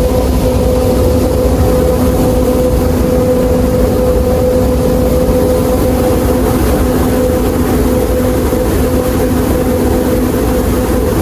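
Water gushing hard out of a hydroelectric power station's outlet: a loud, steady rumble with a constant hum running through it.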